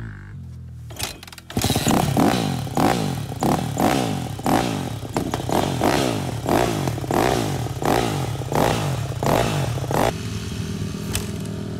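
Off-road dirt bike engine starting about a second and a half in, then revved hard in quick repeated blips, each rising and dropping back. Near the end it settles to a steady idle.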